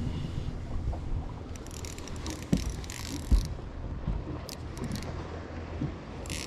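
Wind on the microphone and water around a small boat's hull make a steady low rumble, broken by two sharp knocks in the middle and several short hissy rustles.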